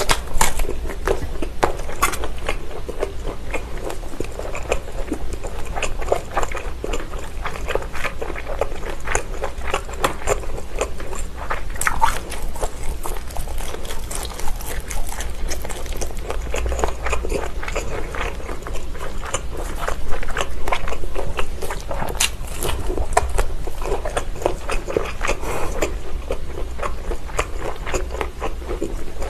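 Close-miked biting and chewing of linked Vienna sausages: a steady run of rapid wet mouth clicks and squelches, with a louder bite right at the start and another loud stretch about two-thirds of the way in.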